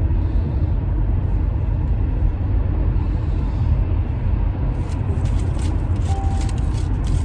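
Steady low rumble of a car cabin, the road and engine noise of the vehicle, with a few light clicks in the second half and a brief faint tone about six seconds in.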